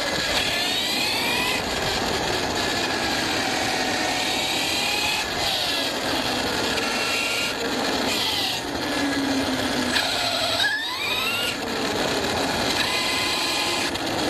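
ARRMA Fireteam 6S RC car's brushless motor and drivetrain whining, the pitch rising and falling with the throttle, with a sharp climb near the end. Under it runs a steady rushing noise of the tyres over rough off-road ground.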